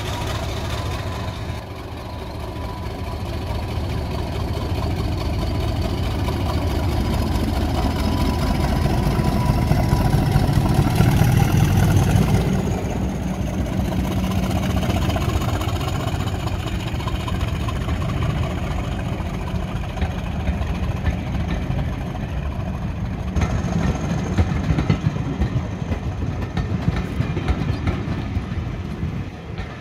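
Heritage diesel locomotive engine running, a heavy low rumble that grows louder to a peak about eleven seconds in and then carries on steadily.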